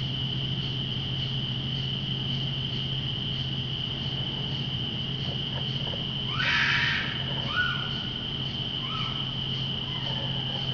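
A steady, high, unbroken night insect trill with a low steady hum beneath. About six seconds in, an unidentified animal lets out one loud harsh cry, followed by two shorter rising calls.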